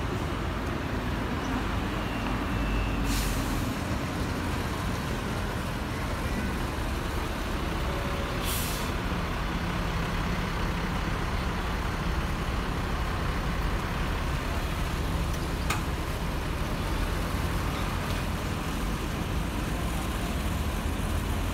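A bus engine idling with a steady low rumble over street traffic. Two short air-brake hisses come about three seconds in and again about eight and a half seconds in.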